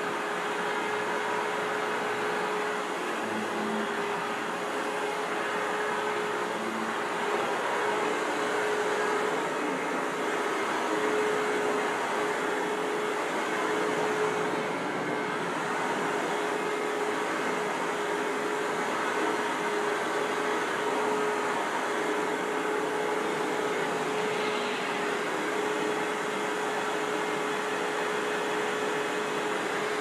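Hoover WindTunnel vacuum cleaner running steadily: an even rush of air with a constant motor hum, swelling slightly now and then.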